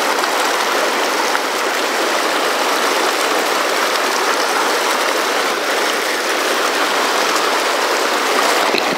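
Fast, turbulent mountain river rushing over rocks through pocket-water rapids: a loud, steady whitewater rush.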